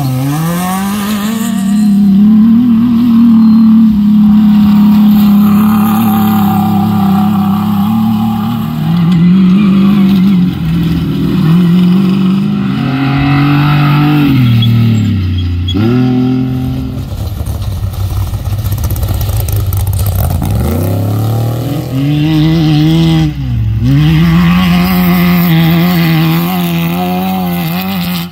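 Off-road race buggy engines revving hard under acceleration. The engine pitch climbs, holds and falls with the throttle, dropping sharply and climbing back twice, about halfway through and again later.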